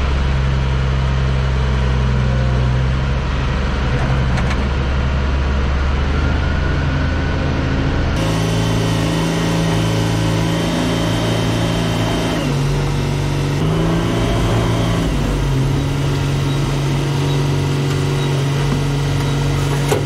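New Holland 1069 self-propelled bale wagon's engine running as the machine is driven, heard from the open cab. Its note steps up and down a few times in the second half.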